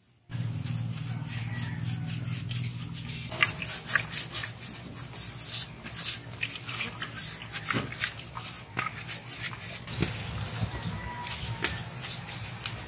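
A coconut husk being torn apart and worked with a machete: a run of scratchy fibre tearing and sharp knocks of the blade. Under it runs a steady low hum, loudest in the first few seconds.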